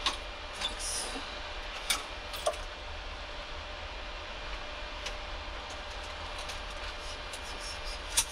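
Steady hum and hiss of a parked Boeing 737 flight deck's air systems, with about half a dozen sharp clicks and taps of cockpit controls and handling spread through it, the loudest near the end.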